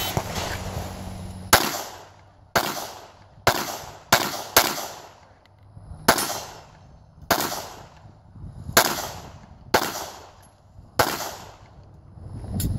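Smith & Wesson M&P9 9mm pistol firing about eleven shots at an uneven pace of roughly one a second, each a sharp crack with a short echo.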